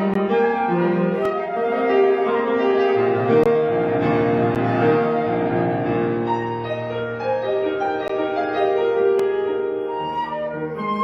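Flute and piano playing a classical chamber piece: a flute melody of held notes over piano chords.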